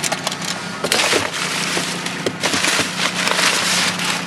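Household items in a trash pile being handled and rummaged through: scattered knocks and clatters with rustling, over a steady low hum.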